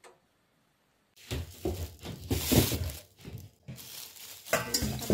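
A thin plastic bag of chestnuts being handled, crinkling and rustling in irregular bursts, starting about a second in.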